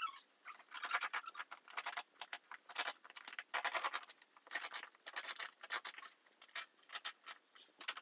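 Scratchy tearing and scraping in irregular short bursts as old floor tape and carpet remnants are pulled up by hand.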